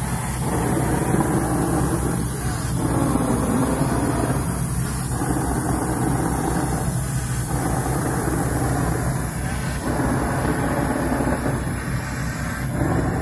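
Shotcrete equipment running: a diesel-driven concrete pump with a steady engine hum, its sound surging and dipping in a regular cycle about every two and a half seconds as concrete is pumped to the spray nozzle.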